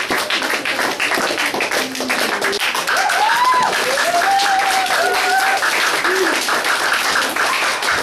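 A small audience clapping steadily, with a few voices calling out and cheering over the applause about three seconds in.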